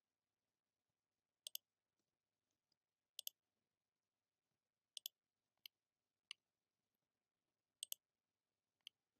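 Computer mouse buttons clicking while edges are selected and menu items chosen: seven quiet, sharp clicks about a second apart, four of them quick double clicks.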